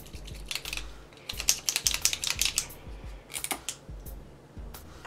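Oil-based gold paint pen being shaken, the mixing ball inside rattling in a long run of quick clicks, then a brief burst later on. The shaking mixes the paint before the tip is pressed down to start the flow.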